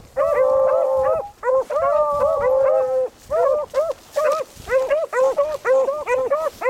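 Beagles baying while running a rabbit's trail, with several voices overlapping. They give long drawn-out bawls for about the first three seconds, then quick, choppy barks a few times a second.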